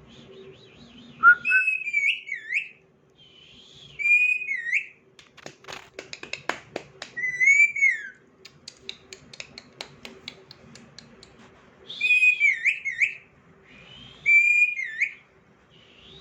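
Pet parrot giving five short, swooping whistles, each bending up and down in pitch, with a run of quick clicks in the middle.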